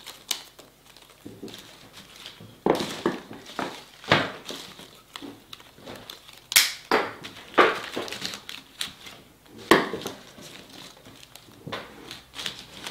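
Leafy foliage (ivy and evergreen sprigs) rustling and crinkling as it is handled and pushed into floral foam, with about half a dozen sharp snips of florist's scissors cutting the stems.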